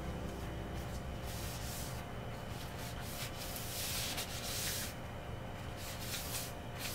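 Repeated rubbing strokes of a cloth or paper towel wiping a wooden floor, uneven in length with one longer stroke about halfway through: cleaning up a cat's vomit.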